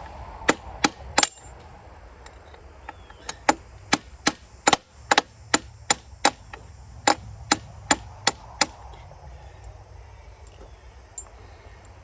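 Hammer blows striking repeatedly: three sharp blows at the start, then after a short pause a run of about fourteen more at roughly two a second, stopping a few seconds before the end.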